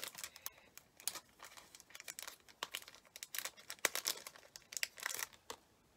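Small plastic wrapper crinkling and crackling in the fingers as a tiny metal charm is unwrapped, in irregular bursts that stop about five and a half seconds in.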